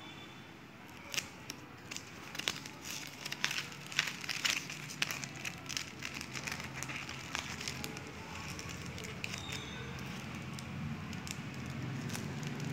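Clear plastic album sleeves crinkling and crackling as they are handled. Sharp crackles come thick over the first few seconds, then ease into a softer steady rustle as the page is turned.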